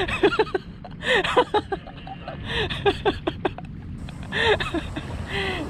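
Short, broken bursts of a man's voice, like laughing or excited calls, in clusters about a second apart. Steady wind and surf noise runs underneath and grows into a wider hiss near the end.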